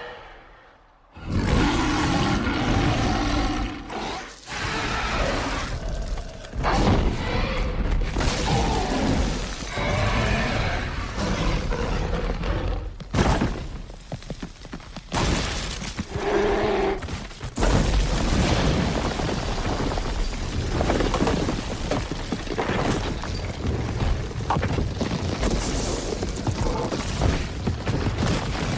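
Film sound-effects track of a dinosaur attack: creature roars and bellows mixed with heavy booms, thuds and crashes. It starts after a brief near-silence about a second in.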